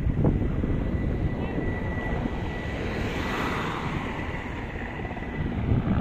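Aircraft passing over, its engine noise swelling around the middle and then easing off, over a steady rumble of wind on the microphone.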